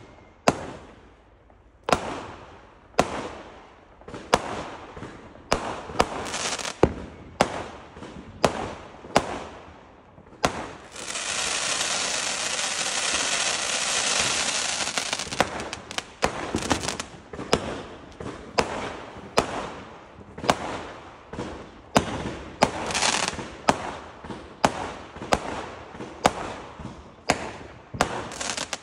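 Fireworks going off: a run of sharp bangs about one a second, each trailing a short crackle. Near the middle, about five seconds of continuous dense crackling.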